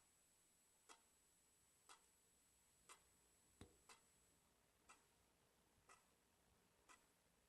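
Faint mechanical clock ticking, about one tick a second, evenly spaced. A single duller, lower knock falls a little past halfway.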